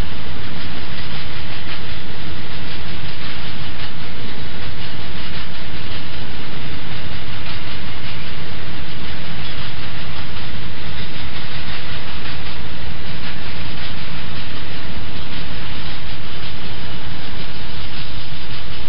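Container flat wagons of an intermodal freight train rolling past, a loud, steady rumble of steel wheels on rail.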